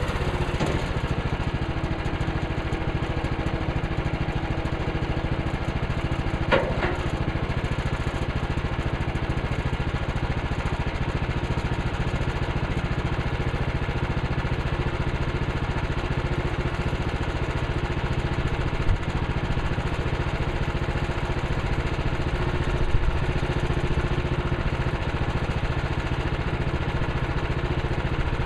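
Woodland Mills HM130 Max portable bandsaw mill's gas engine running steadily, with a few brief sharp knocks.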